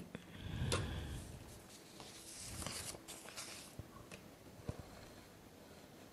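Faint rustle of a sheet of paper being slid across a handwritten page, in two short spells about a second in and again near the middle, with a few light ticks of handling.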